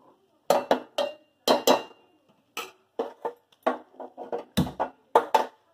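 Steel ladle knocking and scraping against a steel pressure cooker and bowls, a rapid irregular run of clanks and clinks with a heavier knock near the end, as the chickpeas go into the fried masala.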